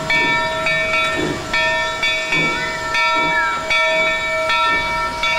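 Steam whistles sounding a run of short notes, each half a second to a second long, whose pitch changes from note to note, over a steady hiss of steam.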